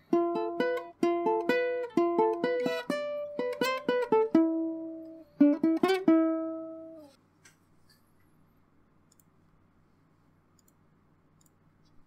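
Background music: a plucked-string melody of short decaying notes that stops about seven seconds in, leaving only a faint low hum.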